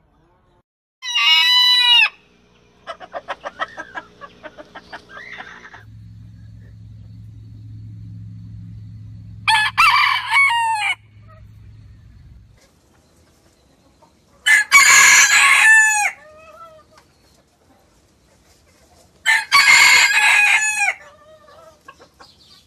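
Sebright bantam roosters crowing: four separate high crows several seconds apart, the first one short and the others each about a second and a half long. Between the first two crows comes a run of quick clucks.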